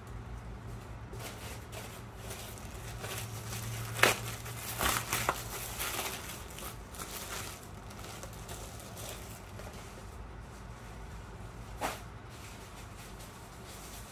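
Plastic packaging crinkling and rustling, with a few sharp knocks about four seconds in, a cluster just after, and one more near the end.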